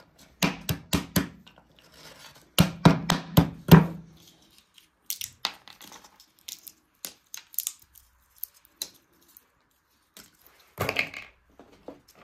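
Knife chopping on a cutting board: two quick runs of four or five strokes in the first four seconds, then scattered light taps and a short clatter near the end.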